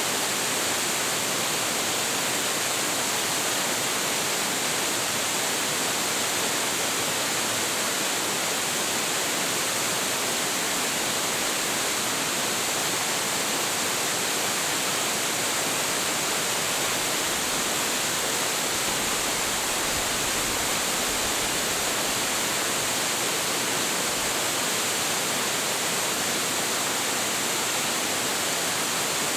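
A large waterfall crashing into its pool: a steady, dense rush of falling water with no breaks.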